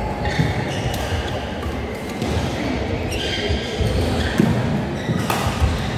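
Badminton rally: sharp racket hits on the shuttlecock and players' footfalls on the court, with a loud hit about five seconds in.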